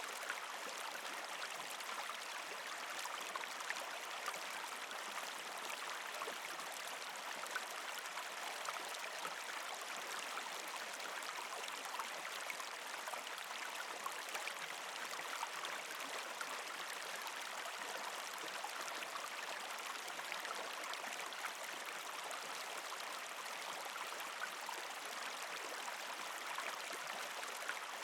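Shallow creek flowing and trickling steadily over rocks between ice, with many small splashes and drips.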